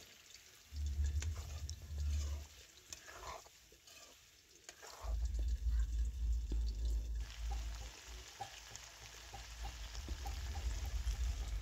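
Chicken and potato chunks sizzling in a metal wok while a spatula stirs them, with scattered clicks and scrapes of the spatula against the pan. A low rumble comes in about a second in and again from about five seconds in.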